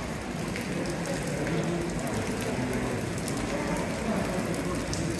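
Outdoor crowd ambience: distant chatter of many visitors in a stone courtyard, with scattered patter of light rain.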